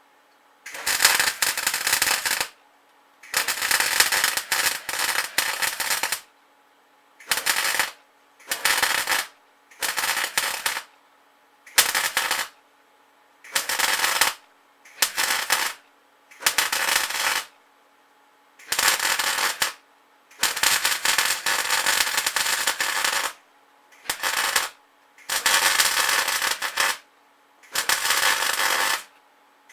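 Arc welder crackling on cast iron in about fourteen short runs, each half a second to three seconds long, stopping and starting with short pauses between.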